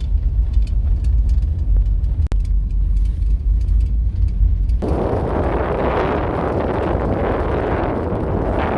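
Steady low rumble of a vehicle driving, the Chevy Astro van's engine and road noise. About five seconds in, it changes abruptly to a loud, even rushing noise, like wind on the microphone.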